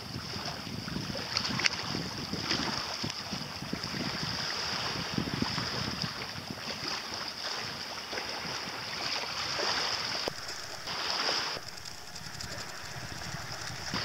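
Wind buffeting the microphone over small waves lapping against shore rocks, with a steady high hiss underneath.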